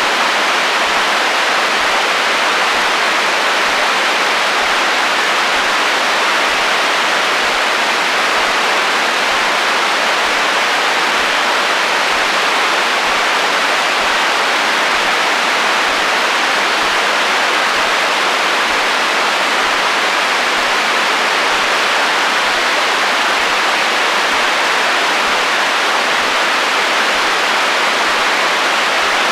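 Steady hiss of FM radio static from an untuned receiver, an even rushing noise with no tones or breaks, strongest in the upper middle range and thin in the bass.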